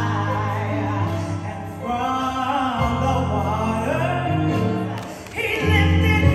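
Live gospel music: a woman singing lead with sliding, ornamented runs over held accompaniment chords. The music dips briefly about five seconds in, then comes back louder.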